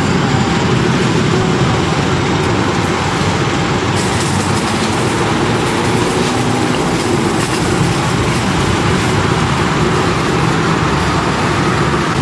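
Steady, loud noise of busy street traffic, a dense wash of passing vehicles with no single event standing out.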